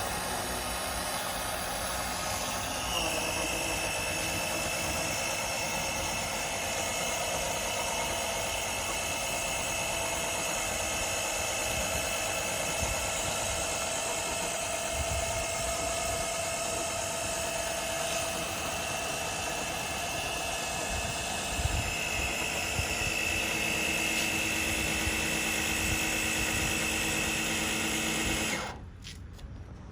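12-volt electric oil extraction pump running steadily, its motor drawing engine oil up through the dipstick tube, with a steady high whine. The tone settles about three seconds in, and the motor cuts off suddenly near the end.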